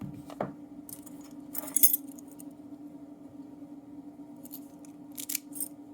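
Small metal lock parts clicking and clinking as a padlock core is handled and set down, a few sharp ticks with the loudest just under two seconds in, over a steady low hum.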